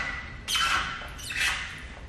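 A squeegee dragged over wet paint protection film on a steel bumper: two quick strokes, about half a second and a second and a half in, each with a slight squeaky tone.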